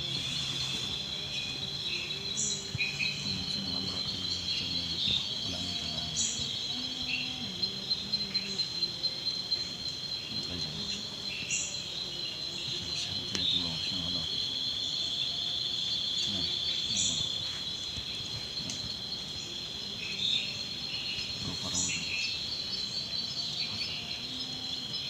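Night insect chorus: a steady, high, shrill trilling, with short high chirps repeating every few seconds. Beneath it is a faint low murmur of voices.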